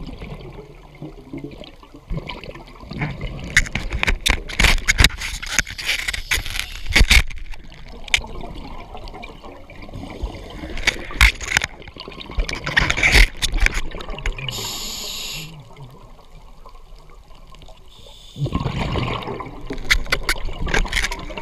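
Scuba diver breathing through a regulator underwater: long bursts of exhaled bubbles rushing and crackling, about three times, with quieter stretches between and a short high hiss of an inhalation in one of them.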